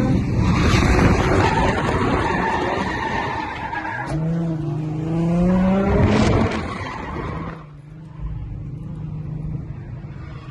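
Holden VY Commodore's Ecotec V6 revving hard while drifting, with tyre squeal. The revs climb about four seconds in, then drop away, and the engine settles to a steady idle for the last couple of seconds.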